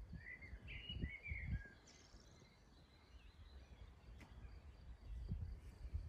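Wind gusting against the microphone as low rumbles, with a songbird's short phrase of quick chirps in the first second and a half.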